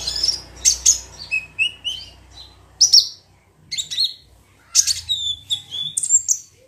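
Kolibri ninja sunbird song: repeated bursts of sharp, high-pitched chirps and short trills, with a brief pause a little past the middle.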